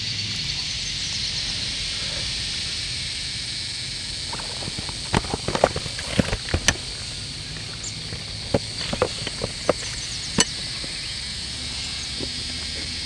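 Sharp clicks and knocks of a Helinox Table M folding camp table being assembled, its frame poles and top rails being fitted into place: a quick cluster of clicks about five seconds in, then a few single knocks later, the last near the end.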